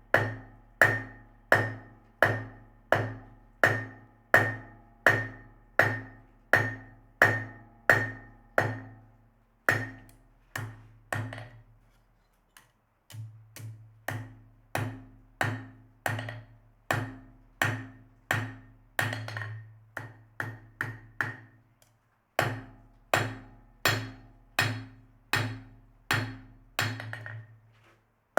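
Hand hammer striking steel on an anvil in a steady rhythm of about one and a half to two blows a second, each blow ringing briefly. The blows lighten and quicken after a short pause about halfway through, with another brief pause near the end.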